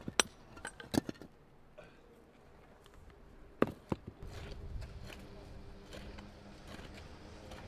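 Sharp knocks of loose basalt stones striking one another as they are stepped on and shifted, four or so over the first four seconds. After that comes a low, steady rumble.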